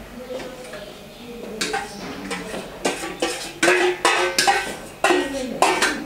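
A metal spoon clinking and scraping against a small metal bowl, in a quick run of sharp clicks.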